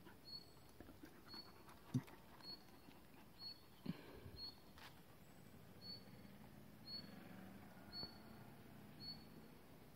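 Faint, short high-pitched chirp repeated about once a second, the steady call of a small creature. There is a low thump about two seconds in and a smaller one near four seconds.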